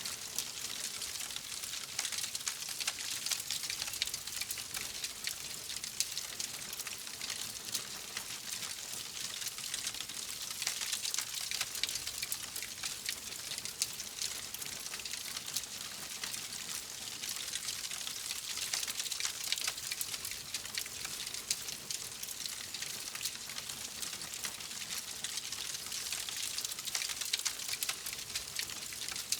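Wood fire crackling in a fireplace: a steady hiss with many small, irregular pops and crackles.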